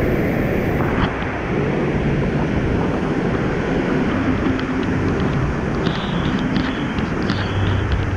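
Artificial waterfalls rushing down rockwork in a steady roar of falling water, mixed with wind buffeting the action camera's microphone.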